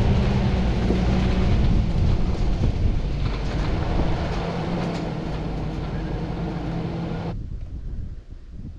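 Toyota LandCruiser 80 Series under way, its engine running steadily with road noise. About seven seconds in the sound cuts off abruptly, leaving faint wind noise.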